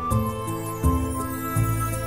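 Background music: sustained melodic notes over a changing bass line, with a light, regular beat.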